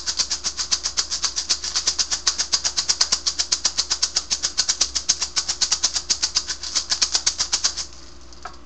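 Hand rattle shaken in a fast, even rhythm of crisp shakes, stopping abruptly near the end.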